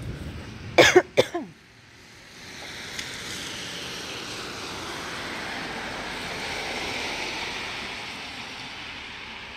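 Two sharp, loud cracks close together about a second in, then a long hiss from car tyres on the wet road that swells and slowly fades as the car passes.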